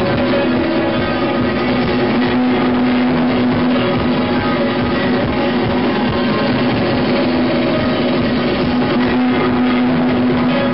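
Live guitar music: an instrumental piece of plucked notes over a sustained low note that swells twice.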